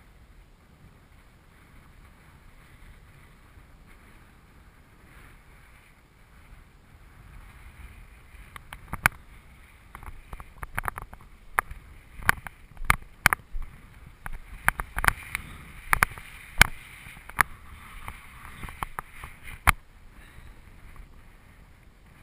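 Wind blowing across the microphone on an open slope, with a run of irregular sharp knocks and pops from about nine to twenty seconds in.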